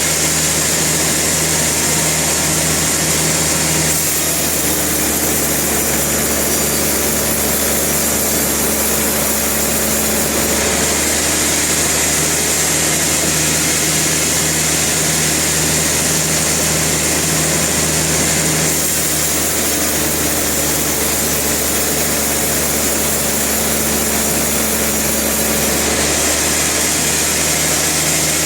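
Sawmill machinery running steadily: a constant engine-like drone under dense mechanical noise, which changes character abruptly every several seconds.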